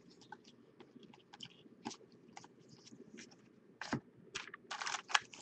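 Faint clicks and light rustling of trading cards being handled, then near the end the crinkling of a foil card-pack wrapper being handled.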